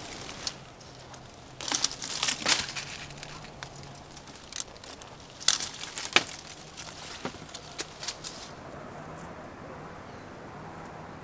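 Leafy citrus branches rustling and crackling as fruit is pulled down with a long pole, in two loud bursts, about two seconds in and again about five and a half seconds in, with a few sharp snaps among them.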